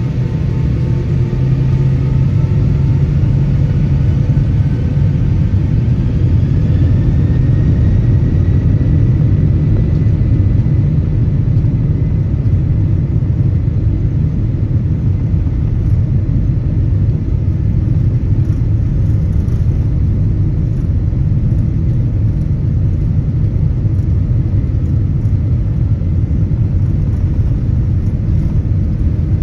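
Boeing 767-300ER's engines spooling up for takeoff, heard inside the cabin: a faint whine rises slowly in pitch over the first ten seconds or so and then holds, over a loud, steady low rumble.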